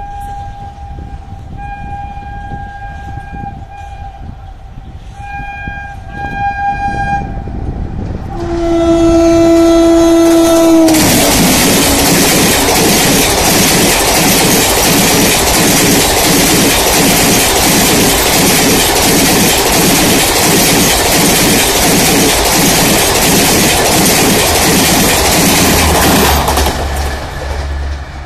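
A WAP-7 electric locomotive's horn sounds several short blasts, then one long lower blast whose pitch drops as the locomotive passes. The Garib Rath Express coaches then rush by at speed with loud wheel noise and a rapid, regular clickety-clack over the rail joints, which fades near the end.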